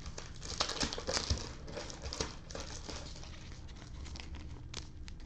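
Crinkling and rustling of a thin plastic card sleeve, with many small ticks, as a trading card is handled by gloved fingers and slid into the sleeve.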